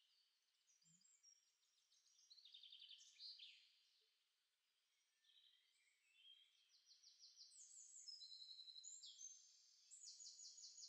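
Faint birdsong: phrases of rapid trilled high notes, each phrase at a different pitch, with a short pause partway through and livelier singing in the second half.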